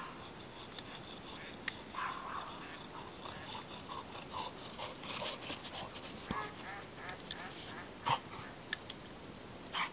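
Scattered quacking of ducks and calls of geese, with a few sharp clicks in between.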